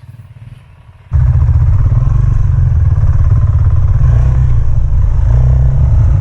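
Dual-sport motorcycle engine running hard under load on a hill climb, loud and close, with a dense pulsing rumble that starts abruptly about a second in.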